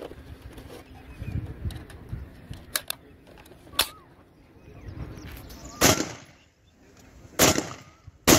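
Colt AR-15/M4-pattern carbine in 5.56×45 firing three single shots, about a second to a second and a half apart, in the second half. Earlier there are two sharp clicks, which come from the rifle's reload.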